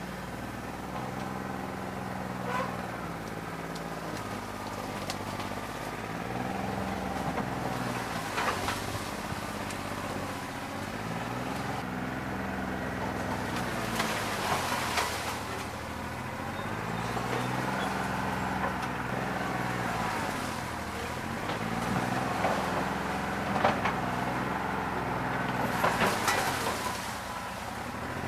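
New Holland 1320 tractor's diesel engine running unevenly on a bad injector, its speed rising and falling again and again as it takes load, with occasional sharp knocks.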